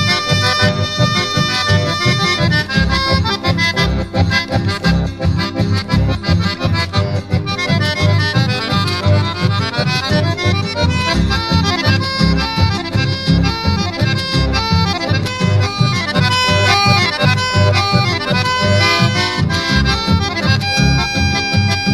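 Instrumental chamamé passage: an accordion leads with quick runs of notes over a steady, pulsing bass accompaniment.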